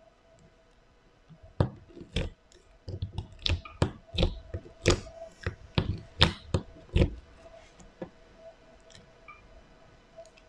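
A string of sharp clicks and taps, about a dozen, clustered between about one and a half and seven seconds in, over a faint steady hum.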